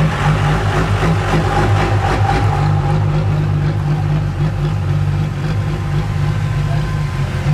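Hot-rodded vintage pickup trucks' engines burbling at a low idle as they creep past at walking pace: first an old Chevrolet 3100, then a rusty old Dodge pickup. The engine note is steady and pulsing.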